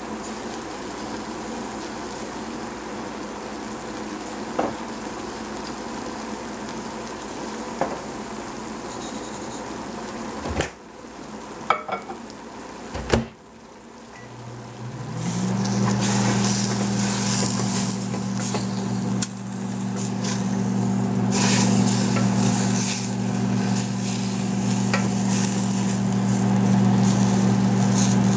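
Baby cabbage and bean thread noodles sizzling in a stainless steel pot, with a few sharp knocks a little before halfway. About halfway a low motor hum starts, rising briefly in pitch and then holding steady, while the crackling sizzle grows louder.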